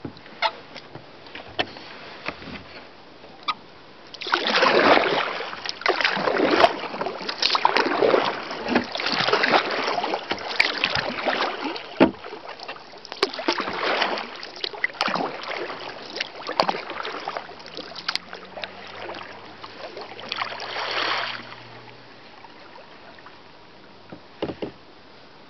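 Kayak paddle strokes pulling through calm water, a swell of splashing and dripping with each stroke, with small clicks among them. The strokes start about four seconds in and stop about four seconds before the end.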